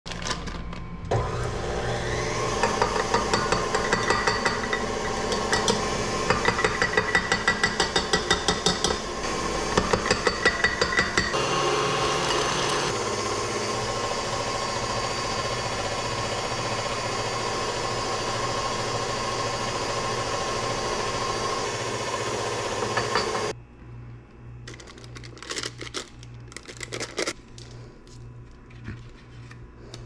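KitchenAid stand mixer running steadily with its wire whip beating butter and frosting, with a fast regular clatter of the whip for several seconds early on. The motor stops abruptly about 23 seconds in, followed by scattered quiet clicks and rustling of a plastic piping bag being filled.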